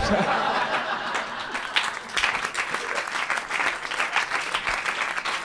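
Live audience applauding: a dense run of hand claps that starts abruptly right after a punchline and keeps going at an even level.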